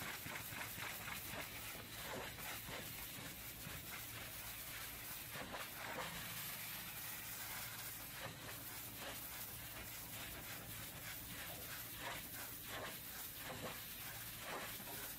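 Pressure-washer jet spraying water against the sheet-metal side panels of a box truck: a faint, steady hiss with scattered spatters.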